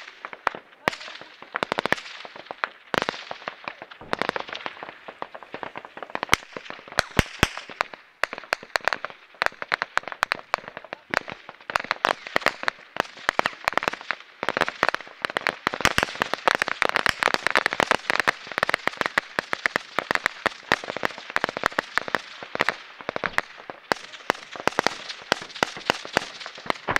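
Dry grass and brush burning, with dense crackling and popping that thickens and grows louder about a third of the way in. A few sharper, louder cracks stand out before that.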